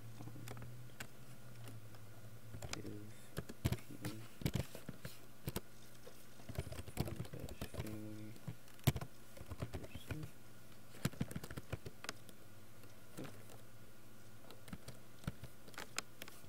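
Typing on a computer keyboard: irregular key clicks in short runs, over a low steady hum.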